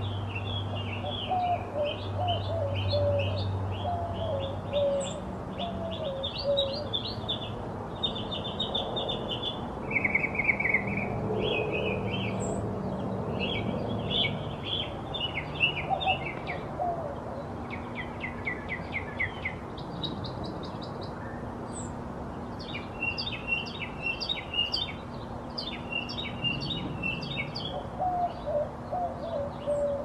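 Northern mockingbird singing: a long run of varied high phrases, each repeated a few times before it switches to a new one.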